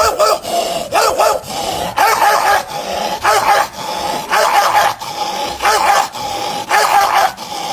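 Angry dog sounds: short, high-pitched barks and yaps repeated every half second or so, with a steady growl carrying between them.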